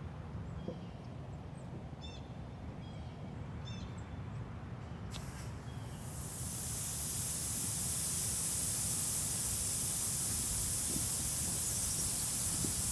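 Compressed air hissing steadily from an air line, starting after a click about halfway through.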